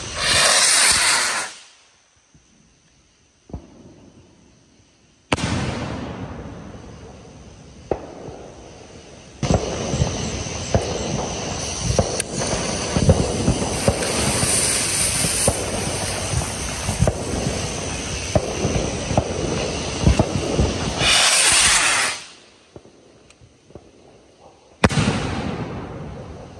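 Gold willow fireworks going off. A loud hissing burst comes at the start, then a bang about five seconds in. From about nine seconds there is a long stretch of dense crackling and popping, another loud hissing burst near the end, and a last sudden bang.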